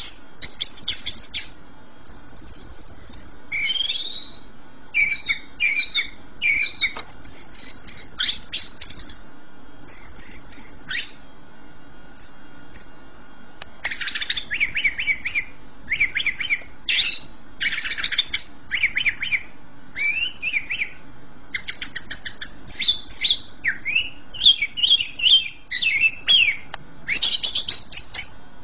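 Cucak ijo (green leafbird) singing vigorously. It gives a long, varied run of sharp chirps, rapid trills and clear whistles, with a brief lull about halfway.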